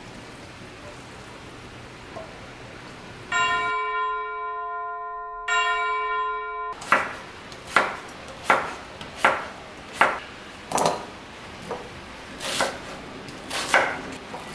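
A bell-like chime rings twice, about two seconds apart. Then a chef's knife chops through cucumber and then onion on a wooden cutting board, one sharp knock a second or a little faster.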